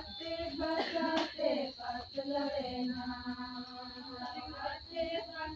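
Women's voices singing a slow, chant-like Karam dance song with long held notes, over a steady high-pitched whine.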